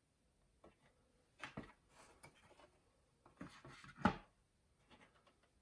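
Light knocks and clicks of a 3D-printed plastic case being handled and set down on a bench, a few scattered taps with the loudest knock about four seconds in.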